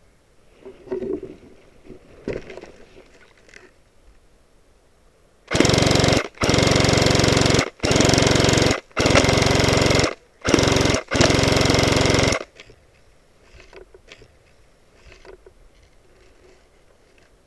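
Airsoft electric rifle, a tuned G&G F2000, firing full-auto in six loud bursts of about half a second to a second and a half each, starting about five and a half seconds in. A few faint knocks and rustles come before it.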